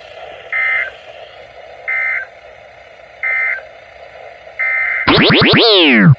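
Four short bursts of Emergency Alert System (SAME) digital data tones, about a second apart, the end-of-message code closing a flood warning broadcast. Then a loud cluster of tones sweeps steeply down in pitch for about a second and cuts off.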